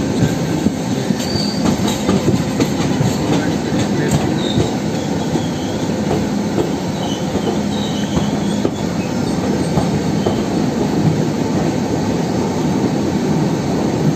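Passenger train running through a station, heard from inside a moving coach: a steady rumble of wheels on the rails with scattered clicks over the track and a faint wavering wheel squeal in the middle.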